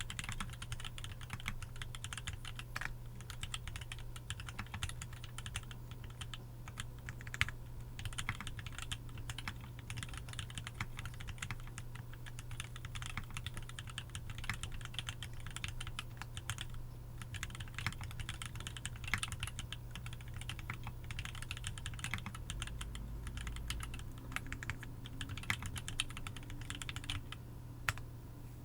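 Continuous typing on a MonstarGear Sangeo 60 mechanical keyboard with Tealios V2 linear switches: a fast, uneven run of keystrokes with a few louder strokes, easing off briefly near the end.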